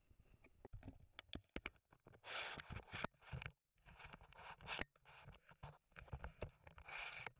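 Faint handling noise of a small action camera in its case: rubbing and scraping bursts with scattered clicks and knocks as it is turned around in the hand.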